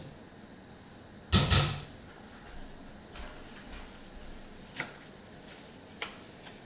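A kitchen cupboard door clatters about a second and a half in, the loudest sound, lasting about half a second. Later come two light sharp clicks a little over a second apart as a small packet of tomato paste is handled.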